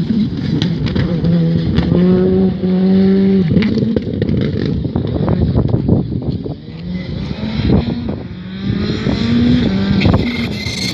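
Skoda R5 rally car's turbocharged four-cylinder engine revving hard, its pitch stepping up and down through gear changes, with repeated sharp cracks.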